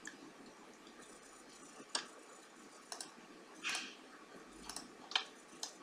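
Computer mouse button clicking: about half a dozen sharp clicks at irregular intervals from about two seconds in, over faint room hiss.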